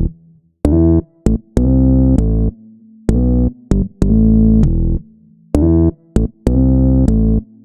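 Background electronic music: short synthesizer keyboard chords played in a repeating rhythmic pattern, with a held low note between them.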